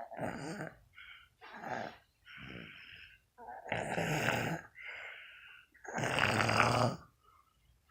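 A sleeping person snoring: about six rough breaths in quick succession, the ones near the middle and near the end the loudest.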